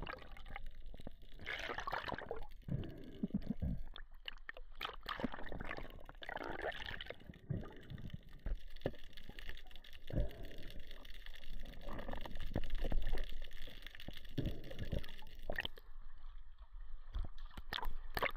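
Muffled gurgling and sloshing of water heard underwater, rising and falling irregularly.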